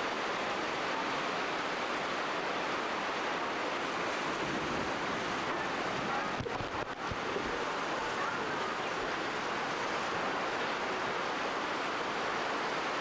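Heavy downburst rain pouring down in strong gusting wind, a steady dense rush heard from under a tent canopy, with a few brief knocks about six and a half seconds in.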